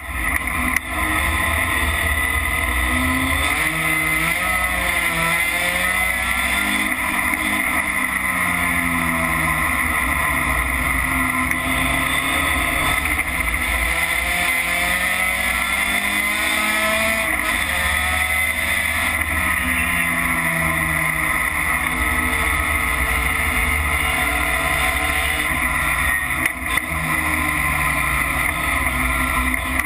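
Racing pickup truck's engine heard from inside the cockpit at race pace, its pitch rising and falling again and again as the driver accelerates, shifts and lifts for corners, over a steady hiss of wind and road noise.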